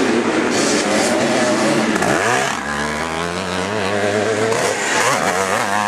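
Motocross motorcycle engines revving hard through a dirt corner, their pitch rising and falling with the throttle. About two seconds in, one engine's revs drop and then climb again as it shuts off and accelerates away.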